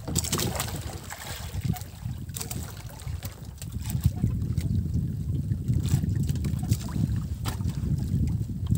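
Wind buffeting the microphone and water moving around a small boat at sea, a low rumbling noise with occasional sharp clicks and knocks.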